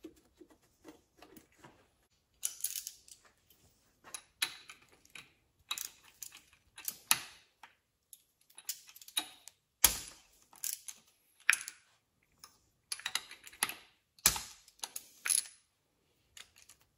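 Ratchet and spark plug socket working the spark plugs out of a Mercury V6 two-stroke outboard: scattered ratchet clicks and short runs of metallic clinking. Two sharper metal knocks stand out, about ten and fourteen seconds in.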